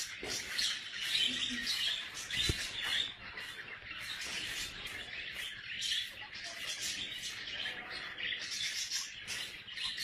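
Small birds chirping busily and continuously: many quick, high chirps overlapping with no break.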